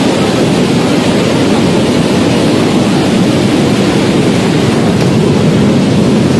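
Muddy floodwater rushing through a gravel riverbed: a loud, steady churning of a flash-flood torrent.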